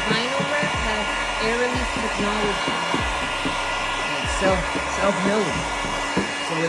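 Electric heat gun running, a steady blowing hiss with a fixed whine, while a felt-edged squeegee is worked over vinyl decal film, adding many short squeaks that bend up and down in pitch.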